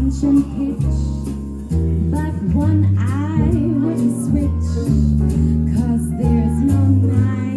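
A woman sings a swing song into a microphone over live band accompaniment. Her voice bends and glides above a bass line that steps to a new note about every second.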